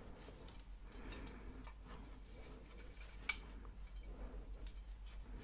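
Faint handling noises from unpacking: light rustling with a few sharp small clicks, the clearest about three seconds in, over a steady low electrical hum.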